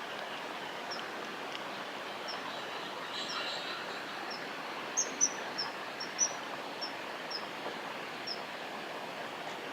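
Common kingfisher calling: short, high, thin chirps repeated about once or twice a second, loudest in a quick run about five to six seconds in, over a steady background hiss.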